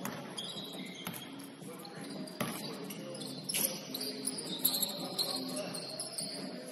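Basketball game on an indoor court: high sneaker squeaks on the floor and a few scattered thumps of the ball, with faint voices in the hall.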